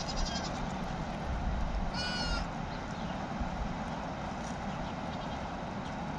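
Goat bleating: one clear wavering high-pitched bleat about two seconds in, with the end of another right at the start, over a steady low background noise.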